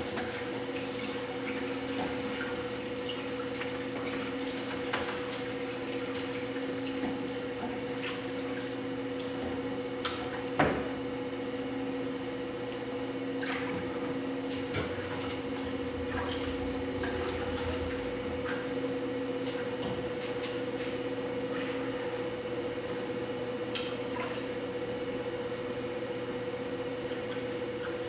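Steady hum of a spinning potter's wheel, with faint wet squelching and small clicks of slip-covered clay under the hands as a vase is thrown. One sharper knock about a third of the way in.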